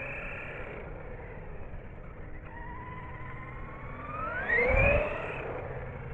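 Electric RC car's motor whining as it drives. The whine fades, then rises in pitch and grows louder about four seconds in as the car speeds up and passes close, with a brief low rumble at its loudest.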